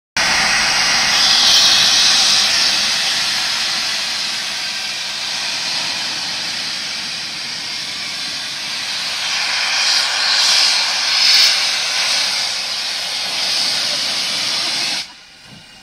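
BR Standard Class 4 tank engine 80105 blowing steam from its open cylinder drain cocks: a loud, steady hiss that swells a few times around the middle and cuts off abruptly near the end.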